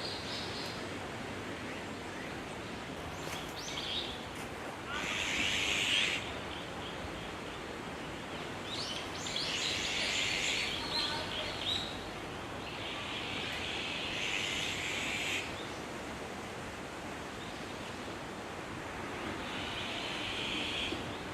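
Bird calls: four harsh, drawn-out bursts of calling, each a second or two long, over a steady outdoor hiss.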